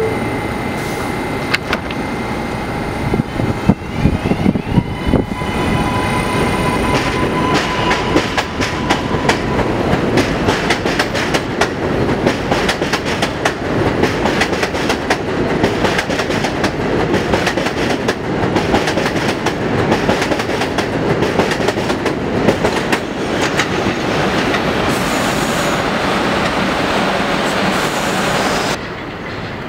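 New York City Subway 7 local train pulling out of an elevated station: the traction motors whine, rising in pitch as it starts off, then the wheels clatter over the rail joints faster and faster as the cars pass. The noise drops away about a second before the end as the last car clears.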